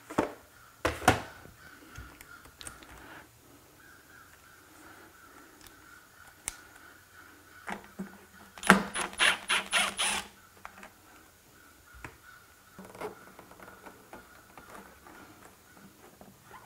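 A T25 Torx driver backing screws out of a Honda S2000 headlight housing, with scattered clicks of tool and plastic parts, a sharp click about a second in, and a quick run of about eight strokes around nine seconds in.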